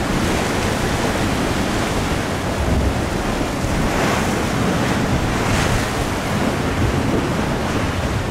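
Rough surf breaking and washing over a rocky shoreline, a continuous rush that swells briefly a couple of times as waves crash, with wind buffeting the microphone.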